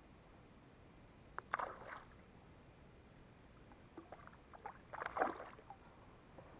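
A hooked fish thrashing and splashing at the water's surface beside a kayak, in two short bouts: about a second and a half in, and again around four to five and a half seconds in.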